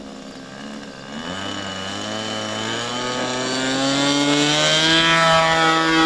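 Seagull MXS-R 120 model airplane's engine and propeller running at idle, then throttled up about a second in for the takeoff roll: a steady drone that grows steadily higher and louder as the plane lifts off and climbs.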